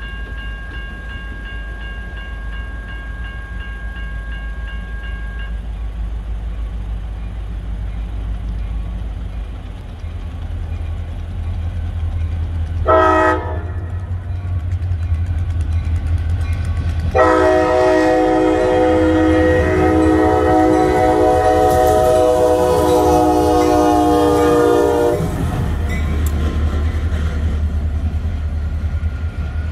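CSX SD40-2 diesel-electric locomotive running light, its diesel engine a steady low rumble throughout. A bell rings for about the first five seconds, then the air horn gives a short blast about thirteen seconds in and a long blast of about eight seconds that ends suddenly.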